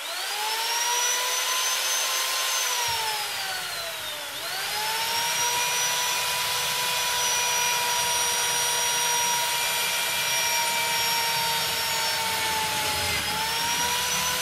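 Corded electric drill, held in a lever-operated drill-press jig, running at speed with a high motor whine while drilling metal. The whine drops in pitch twice as the bit bites under lever pressure, then picks back up, over a low grinding rumble of the cut.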